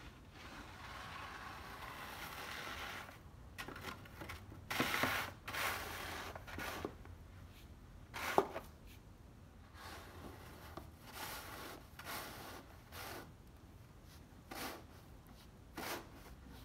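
Snow shovel scraping and pushing icy snow across pavement in irregular strokes, with one sharper knock of the blade about halfway through.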